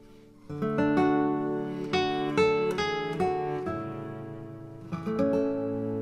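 Background music on acoustic guitar: plucked and strummed chords, each ringing out and fading, starting about half a second in after a brief lull.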